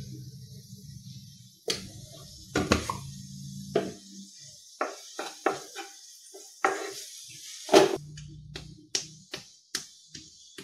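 Wooden spatula stirring chopped onions in a kadai, knocking and scraping against the pan in irregular sharp clacks, over a steady high sizzle of the onions frying in coconut oil.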